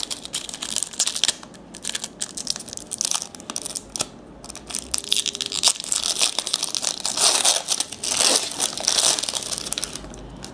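Trading-card pack wrapper crinkling and tearing as it is opened, in irregular crackles that grow busier and louder about six to nine seconds in and stop shortly before the end.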